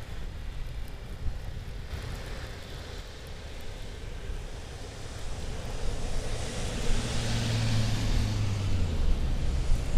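A vehicle drives past on a snowy street: its engine and tyre noise build from about halfway through and are loudest near the end, and the engine tone drops as it goes by. Wind rumbles on the microphone throughout.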